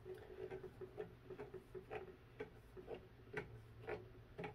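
Faint, uneven clicking, about two clicks a second, as the clamp knob of a Velke Potoky stitching stand is turned to tighten it on a Q-snap frame.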